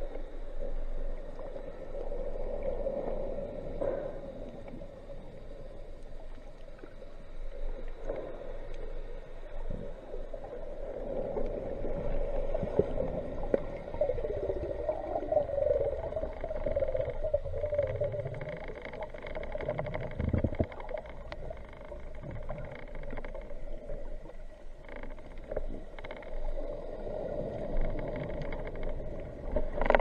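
Underwater sound picked up by a submerged camera: water noise with a steady hum, a few gliding tones about halfway through, and scattered clicks.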